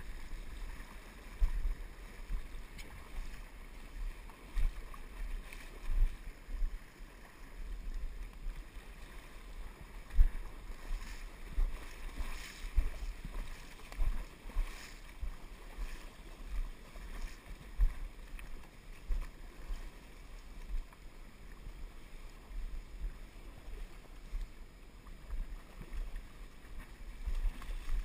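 Muffled low rumble and irregular dull thumps from a GoPro sealed in its waterproof housing on a fishing rod, knocked about while a hooked pink salmon is played. A few brief splashes come through about halfway through.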